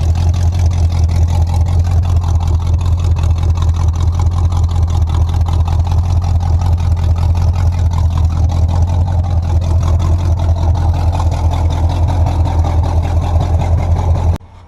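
1985 Chevy C10's small-block V8 running steadily through freshly painted headers, its exhaust pulsing evenly. It cuts off abruptly near the end.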